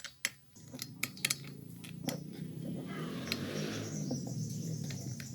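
A few light clicks, then a steady metallic scraping and rubbing as the chainsaw adapter's bar and chain are screwed tight on an angle grinder.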